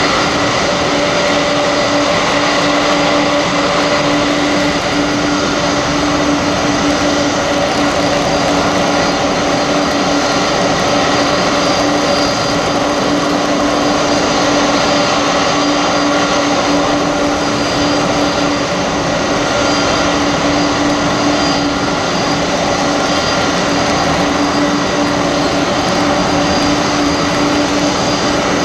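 Boeing 747-400 jet during pushback: a steady turbine whine over an even rushing noise, with a constant hum, holding the same pitch throughout.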